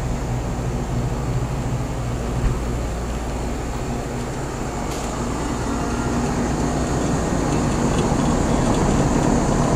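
Central air-conditioner condensing units running: a steady low compressor hum under the rush of the condenser fans, with a faint high whine, getting a little louder in the last few seconds.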